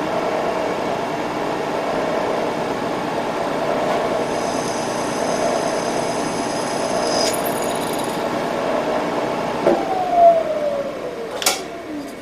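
Drill press running steadily while drilling screw holes in small metal clips, with a faint high whine from about four to seven seconds in. Near the end there are a few sharp clicks and knocks as it is switched off, and the motor winds down in a falling whine.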